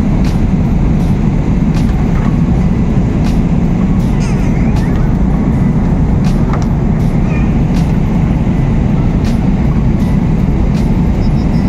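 Steady low drone of a Boeing 777-300ER's cabin in flight, unchanging throughout.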